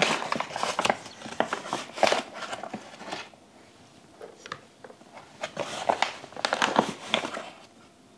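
Kitchen handling sounds: crinkling, rustling and light clicks and knocks of containers and packaging as bread-dough ingredients are added. The sounds come in two busy spells, at the start and again past the middle.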